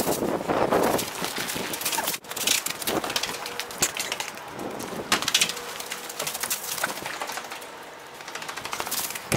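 Irregular crunching and crackling of footsteps on packed snow, with rustling.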